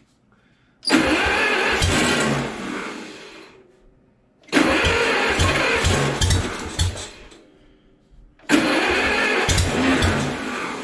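Starter cranking the gas engine of a 1950s Schramm Pneumapower 35-H air compressor in three tries of about three seconds each, each one starting loud and fading away. The compressor's air valve is closed, so air pressure is building up and fighting the starter.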